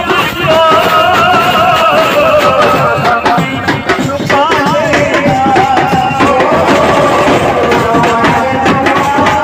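A male singer's ornamented, wavering vocal over amplified music with a drum beat, played loud through a stage sound system.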